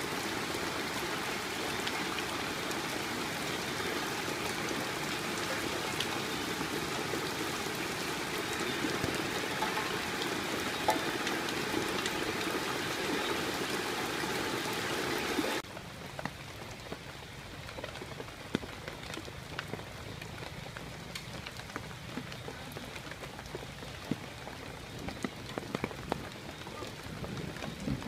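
Steady rain falling on pond water and leaves, over fast-flowing muddy floodwater rushing through the weeds. A little past halfway the sound drops abruptly to quieter rain with scattered drop taps.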